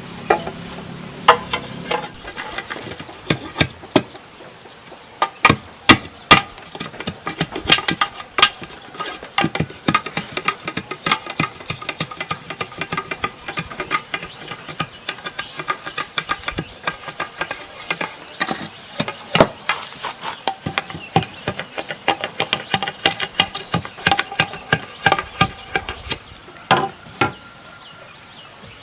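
Bamboo being worked with hand tools: irregular sharp knocks and taps, sparse at first, then a dense run through the middle with a few louder strikes, stopping shortly before the end.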